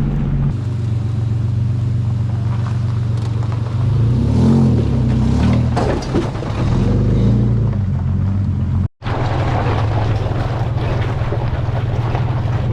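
Engine and road noise of a Titan-swapped Nissan Xterra driving a rough woods road, a steady low drone. The engine pitch rises and falls a few times around four to seven seconds in, and the sound cuts out for a moment about nine seconds in.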